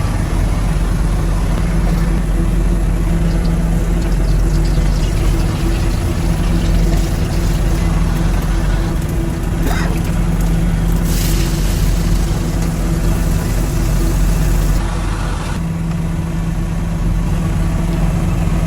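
A boat's engine running with a steady, loud drone.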